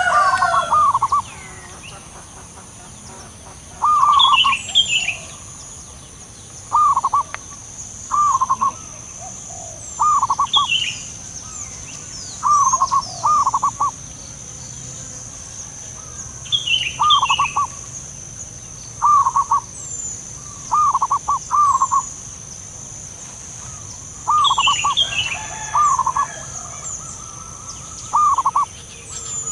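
Zebra doves calling back and forth: short bursts of two or three quick, falling cooing notes, repeated every second or two.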